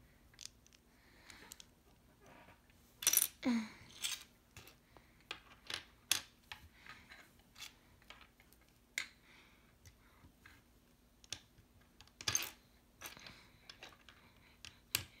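Plastic LEGO bricks clicking and clattering as they are picked from a pile and pressed together by hand: scattered light clicks, with a louder clatter about three seconds in and another later on.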